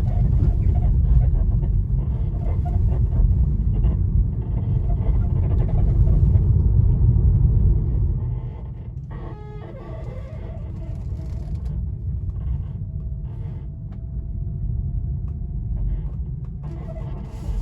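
Steady low rumble that drops away about eight seconds in. About a second later comes a short, rapid creak, followed by a thin steady squeak. This is typical of the Tesla Model 3's worn front control arm (Querlenker) bushings creaking under steering or suspension compression.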